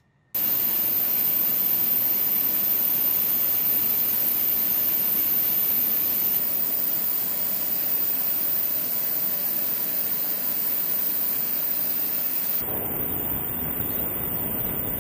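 F-35B fighter jet engine running on the ground: a steady loud roar with a high whine on top, cutting in abruptly a moment in. Near the end the sound changes to a fuller, deeper rumble.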